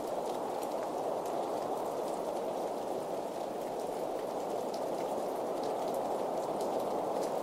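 Steady rain falling, a dense even hiss with scattered sharper drop ticks through it.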